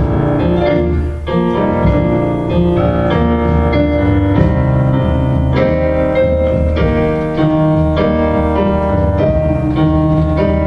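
Piano playing a slow worship-song accompaniment, sustained chords changing about once a second.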